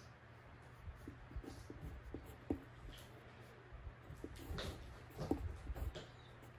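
Pencil writing by hand on paper: a run of short scratchy strokes, a little louder about two-thirds of the way through, over a faint low hum.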